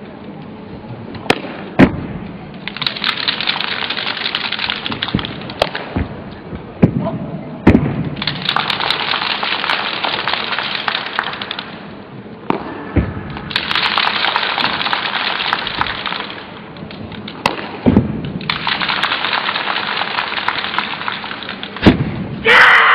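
Wooden nangun (southern staff) cracking against the competition carpet with stamping feet, about ten sharp impacts spread out, between four stretches of rushing noise lasting a few seconds each. A short shout near the end.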